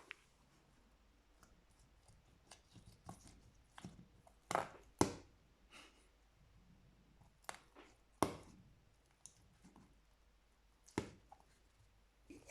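Slime being handled and pressed, giving irregular sticky clicks and small pops, the loudest a pair about halfway through and single ones about eight and eleven seconds in.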